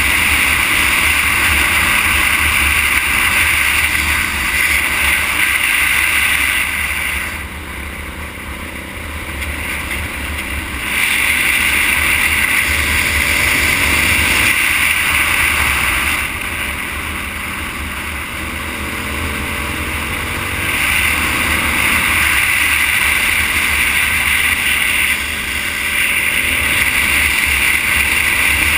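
Steady rush of wind on the microphone and tyre noise on asphalt from a moving vehicle. It eases twice for a few seconds, about a quarter and about two-thirds of the way through.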